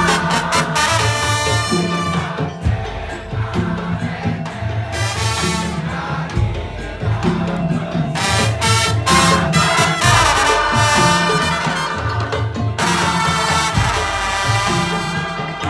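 Madurese tong-tong ensemble music: a repeating low beat of drums and percussion with a melody played over it.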